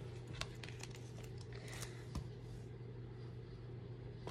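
Faint handling noises and a few light ticks as bundles of embroidery floss are moved about on a wooden table, over a steady low hum.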